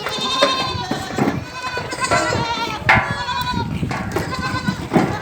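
Many goats bleating at once, overlapping wavering calls with no pause between them.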